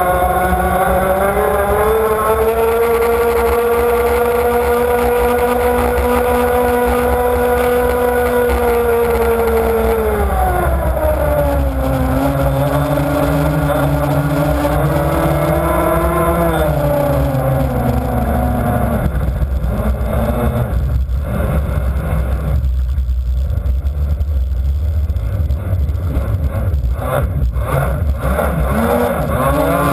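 Onboard sound of a model offshore powerboat's motor running at speed, its pitch climbing in the first couple of seconds, holding high, then dropping about ten seconds in. Around two-thirds of the way through the motor note fades under splashing water and knocks, then rises again near the end, with a steady rush of water and wind throughout.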